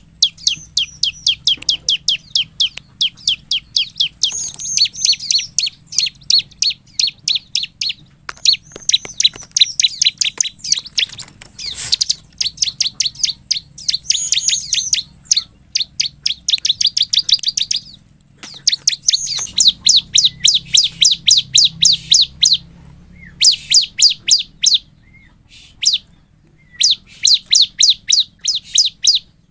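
Bar-winged prinia singing: long runs of sharp, high chirps repeated about five a second, broken by a few short pauses in the second half.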